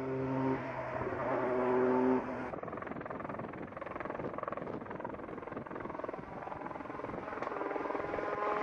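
Peugeot 208 T16 Pikes Peak race car's twin-turbo V6 at full throttle, held at high revs with its pitch stepping between steady notes. About two seconds in it drops suddenly to a fainter, more distant engine sound, which grows louder again near the end as the car approaches.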